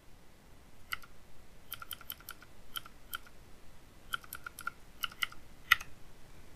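Computer keyboard arrow keys tapped, about fifteen short clicks: some single, some in quick runs of four or five taps.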